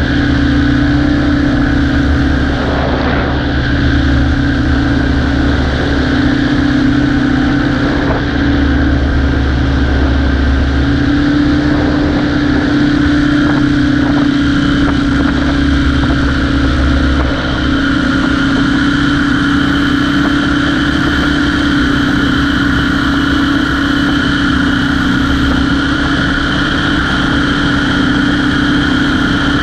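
Propeller aircraft engine running steadily in flight, a loud even drone that shifts slightly in pitch a couple of times.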